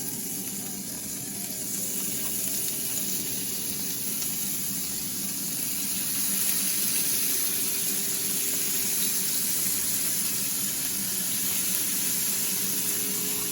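Bacon sizzling in a hot frying pan: a steady hiss that grows a little louder over the first few seconds, then holds.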